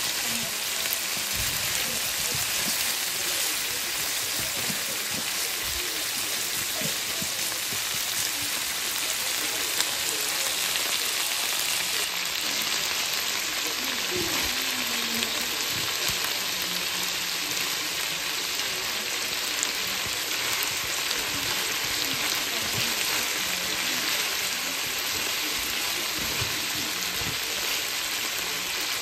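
Sliced potatoes and onions sizzling steadily in oil in a frying pan, with occasional clicks and scrapes as metal tongs turn them.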